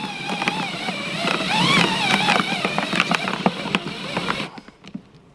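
Drill in low gear cutting a hole through the plastic-and-foam wall of a cooler, a wavering high-pitched whine with scattered clicks and rattles from the bit biting the plastic. It stops about four and a half seconds in.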